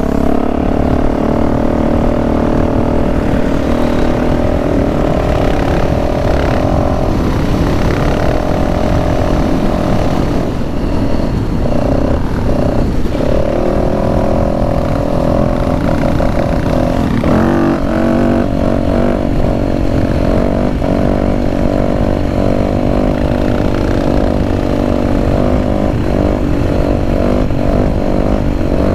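Dirt bike engine running steadily at riding speed, heard from on the bike, with wind rush on the microphone. The engine note breaks off briefly a little before halfway, shifts pitch soon after, and turns choppier near the end.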